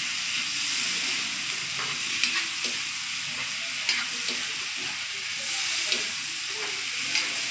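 Garlic, onion and tomato sizzling in oil in a steel wok as they are sautéed and stirred, with a few sharp clicks of the stirring utensil against the pan.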